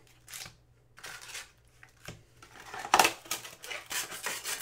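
Hands handling a cardboard trading-card box and the packs and packing inside it: rustling and scraping in several short bursts, the loudest about three seconds in.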